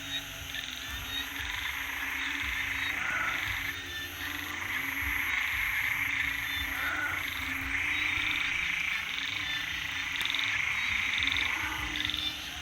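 A chorus of frogs calling after rain, swelling into louder waves of about two seconds each, several times over. A steady high-pitched insect trill pulses above them.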